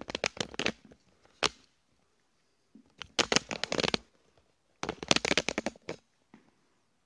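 Handling noise from the recording device being picked up and moved: several bursts of crackly rubbing and clattering right on the microphone, with a single knock about a second and a half in.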